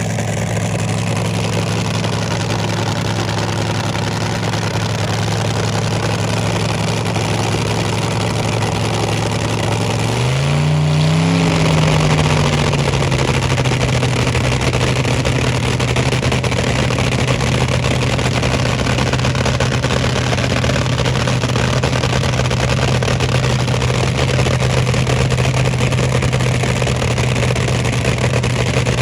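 A loud engine running steadily, revved once about ten seconds in, then settling back to a steady idle.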